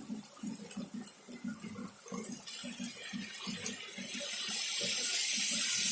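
Water poured into a hot pan of frying onion, tomato and ginger-garlic masala, with a hiss that builds from about halfway through.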